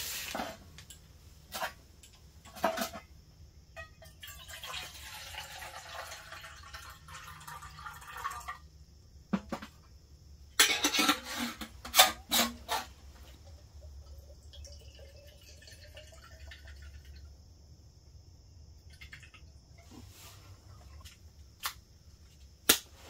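Camp cooking gear handled on a slatted camp table: knocks and clinks of a metal canteen cup and small stove, rustling, and a loud run of sharp clicks about eleven seconds in. A steady high insect chirring runs underneath.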